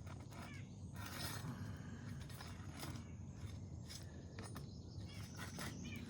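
Asphalt shingles being pried up and handled, with scattered clicks, scrapes and crackles as a tab tears around its nail and pulls through it.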